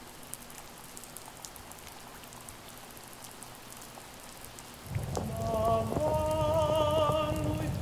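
Rain pattering softly with scattered drops. About five seconds in, a louder layer comes in: a low rumble with a few held, slightly wavering musical notes over it.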